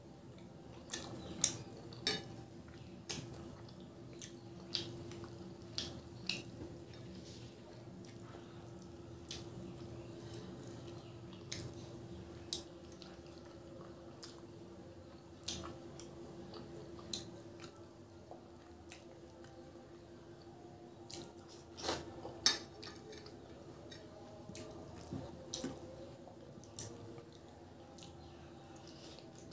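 Close-up eating sounds: chewing and wet mouth smacks as a piece of chicken in curry is bitten and eaten by hand, with frequent sharp mouth clicks scattered irregularly throughout. A faint steady hum runs underneath.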